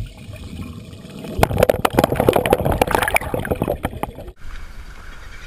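Water splashing and gurgling, heard through a camera held just under the surface. A dense run of sharp knocks and splashes starts about a second and a half in and cuts off abruptly about four seconds in, leaving a quieter wash of water.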